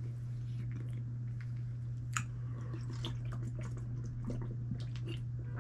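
Person chewing a millet tot, with soft mouth clicks and smacks, over a steady low hum. Near the end, swallowing sips from a plastic water bottle.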